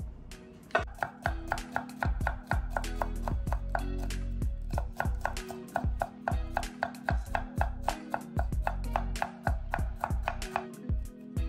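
Chef's knife slicing a red bell pepper into strips on a bamboo cutting board: a steady run of quick knife taps on the wood, about three or four a second, starting about a second in.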